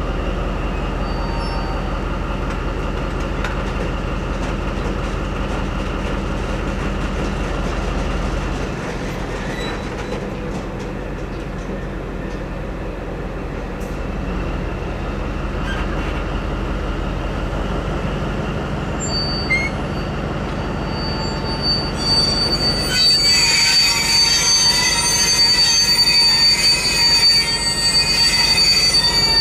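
Railway diesel-hydraulic locomotive (ÖBB Rh 2143) running with a steady low engine drone. About 23 seconds in, high-pitched brake squeal sets in with several steady shrill tones and grows louder.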